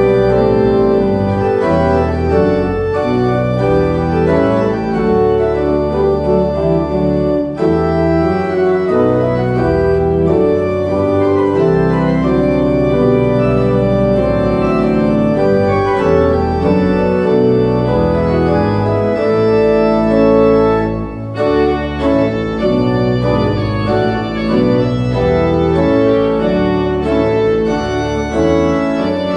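Two-manual residence pipe organ playing full sustained chords over a deep pedal bass, with a short break in the sound about two-thirds of the way through.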